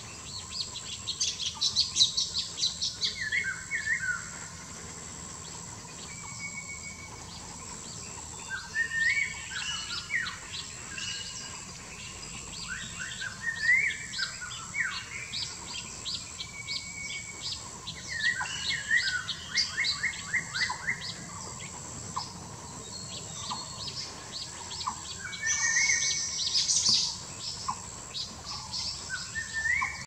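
A songbird singing in bursts of quick chirps and short falling whistles, a new phrase every few seconds, over a thin steady high tone.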